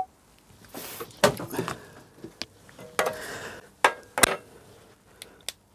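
Metal engine parts being handled on a workbench: a string of separate sharp clinks and knocks with some rustling between them.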